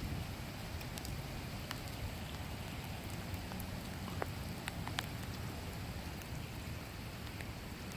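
Light rain: scattered drops ticking at irregular times over a steady low rumble.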